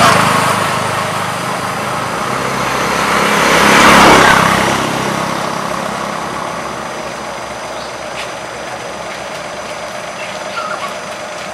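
Road vehicles passing close by: engine and tyre noise swells at the start and again, louder, about four seconds in, then eases to a steady traffic hum.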